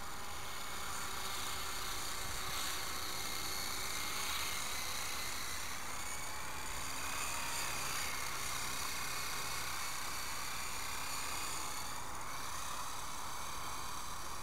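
E-flite Blade CX3 coaxial electric RC helicopter flying, its motors and rotors giving a steady high whine that dips and rises in pitch a few times with throttle, over a constant hiss.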